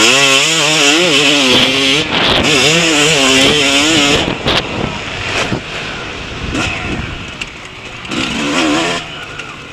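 Yamaha motocross bike engine pulling hard, its revs rising and falling quickly for the first four seconds, with a brief cut about two seconds in. It then runs mostly off the throttle with a short burst of revs near the end, over a steady hiss of wind.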